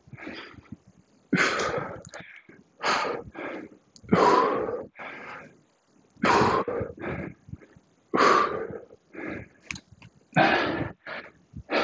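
A man breathing hard under exertion while lifting dumbbells: a loud, sharp exhale every second and a half to two seconds, with shorter, quieter breaths between.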